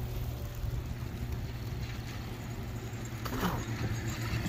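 Steady low rumble of wind on the microphone and tyres rolling on pavement while riding a small electric scooter or e-bike along a paved trail.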